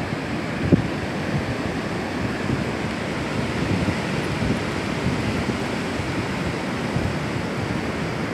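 Ocean surf breaking and washing up a flat sandy beach: a steady rush of white water. Wind buffets the microphone in low gusts, with one short bump about a second in.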